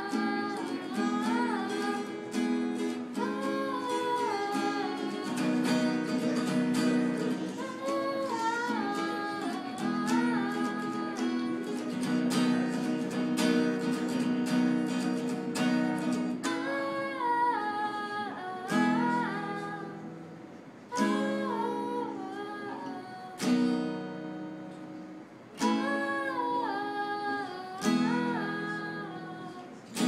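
Acoustic guitar strummed with a voice singing a melody over it. In the second half the playing thins to single strong strums about every two seconds, each left to ring out.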